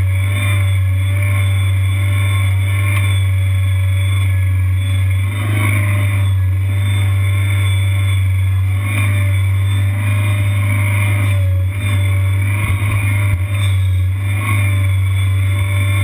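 Engine of a Kanga Kid tracked mini skid steer running steadily as the machine drives, heard close up as a loud, even, low drone, with a few brief low knocks about three-quarters of the way through.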